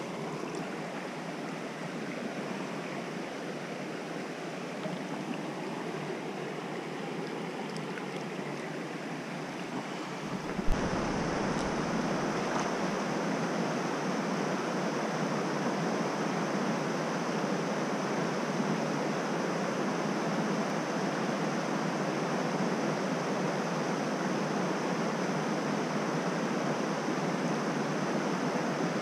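Steady rushing of a small, fast-flowing trout stream over rocks. About ten seconds in there is a single sharp knock and the water noise becomes louder and stays so.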